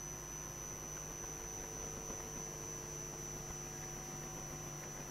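Steady electrical hum with faint room tone and no distinct events.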